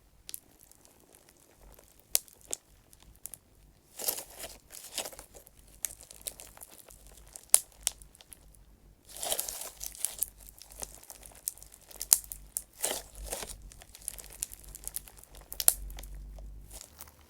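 Clear slime full of small clay chips being squeezed and worked by hand: irregular crackling air-bubble pops mixed with the gritty crunch of the chips rubbing together, with scattered sharp clicks and a few louder bursts of popping.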